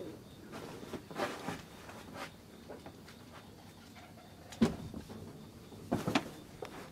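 Scattered knocks and thuds of a cat moving on and climbing down from a metal wire shelf of DVDs; the loudest thump comes about two-thirds of the way through, with a few more knocks near the end.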